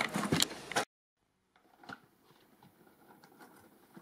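A voice trails off in the first second, then after a short dead gap comes quiet room tone with a few faint, scattered taps and rustles, the loudest of them about two seconds in.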